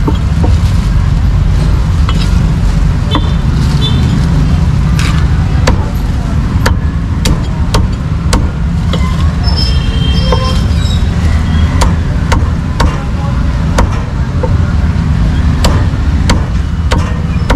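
Cleaver chopping roast duck on a thick wooden chopping block: a dozen or more sharp, irregularly spaced chops, over a steady low rumble of street traffic.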